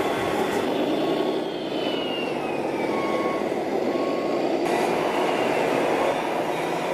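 Sound modules of radio-controlled model trucks playing a steady diesel-truck running sound as the trucks drive past, with a few short faint beeps.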